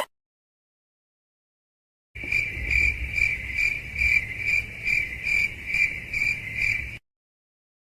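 Crickets chirping, about two and a half chirps a second, starting about two seconds in and cutting off suddenly near the end: the stock crickets sound effect used as an awkward-silence gag.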